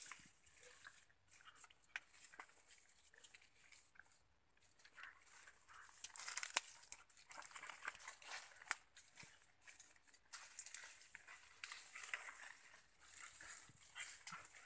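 Faint, irregular rustling and crackling of coffee-tree leaves and twigs, with scattered sharp clicks.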